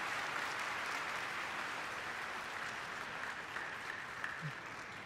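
Arena audience applauding the win at the end of a sumo bout: steady clapping that slowly fades away.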